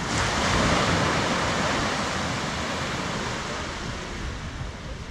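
Ocean surf on a sandy beach: a wave breaking and washing in, loudest about half a second in and slowly fading.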